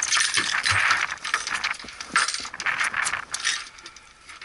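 Quick clicking and clattering, with a sharp knock a little over two seconds in, as a landed giant trevally and the metal stickbait lure hooked in its jaw are set down on a fibreglass boat deck; the clatter thins out towards the end.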